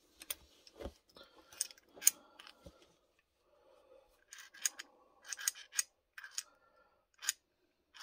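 Propane regulator and brass fitting handled and pushed together, metal parts clicking and scraping. Scattered sharp clicks, coming in quicker runs in the second half.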